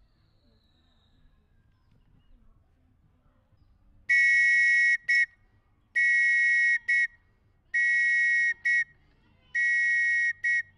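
A whistle blown as a scout signal: about four seconds in, four long blasts of roughly a second each, every one followed at once by a short blast, in an even long-short rhythm.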